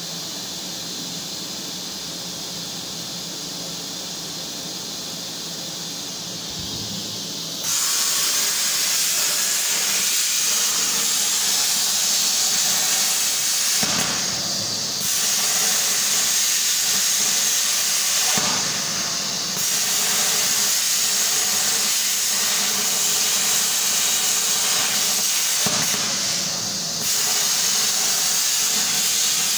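Plasma cutter torch on a homemade CNC table cutting steel plate: a steady hiss. It is quieter at first, jumps louder about eight seconds in, and dips briefly three times later on.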